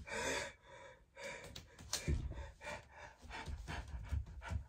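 A man gasping and panting hard as he braces himself to jump onto a spiked pain mat, with a few dull low thumps in between.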